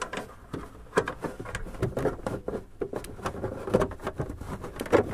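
Irregular clicks, taps and knocks of hands and a tool on plastic dashboard trim as a car's glove box is held in place and its small bolts underneath are done up.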